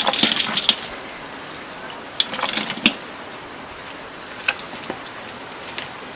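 Light kitchen clatter and rustling as onions are added to a pot of meat: a short cluster of knocks at the start and another about two seconds in, then a few single clicks, over a faint steady hiss.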